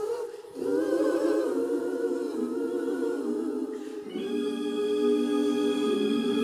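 Gospel choir singing slow, held chords a cappella. It dips briefly about half a second in, and a fuller, higher chord with more voices comes in about four seconds in.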